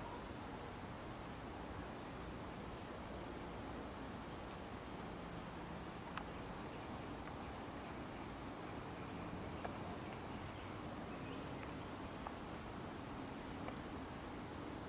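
Faint insect chirping: a high double chirp repeating evenly about every two-thirds of a second, starting a few seconds in, with a brief pause near the middle. A steady thin high tone and a couple of faint clicks sit over it.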